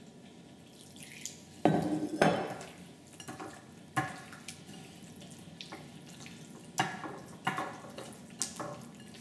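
Hands squishing and turning raw tilapia pieces in cooking wine and salt in a ceramic bowl: wet sloshing, louder about two seconds in, with several sharp clicks of fingers or fish against the bowl later on.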